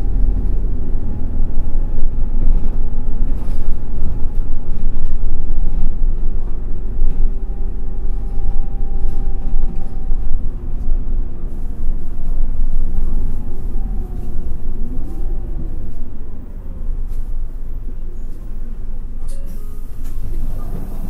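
Inside a Toei city bus under way: the engine and drivetrain drone, with faint whining tones over a heavy road rumble. The sound eases off over the last few seconds as the bus slows, and there is a brief hiss near the end.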